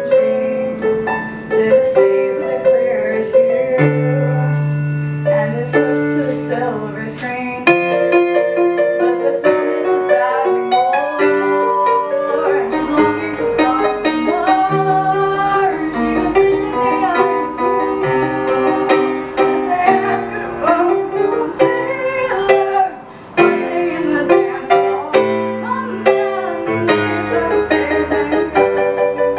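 Girl playing a digital keyboard with a piano sound, steady chords and melody notes, and singing along to her own accompaniment. Her voice comes in about twelve seconds in.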